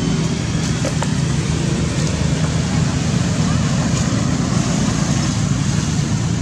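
Steady low rumbling background noise, with a few faint ticks about a second in.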